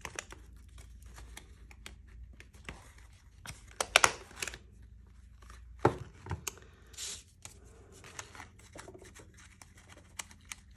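Paper and card handled by hand: rustling and crinkling with scattered sharp taps, the loudest about four seconds in, and a thump about six seconds in.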